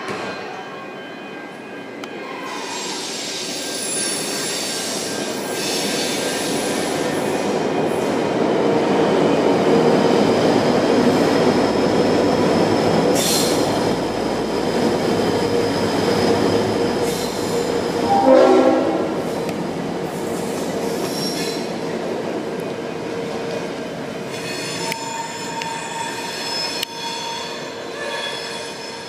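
V/Line N class diesel-electric locomotive, an EMD V12 two-stroke, running light engine past on the rails: its engine and wheel noise builds as it approaches, is loudest as it passes, then eases away, with high steady wheel squeal. A short horn blast sounds about two-thirds of the way through.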